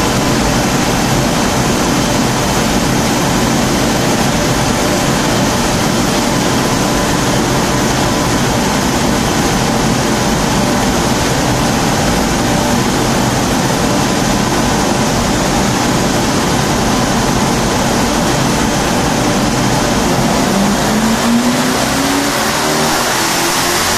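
Mercedes M119 5.0-litre V8 in a W201 saloon running on a chassis dynamometer: a loud, steady rush throughout, then from about 20 seconds in a rising engine note as it revs up under load.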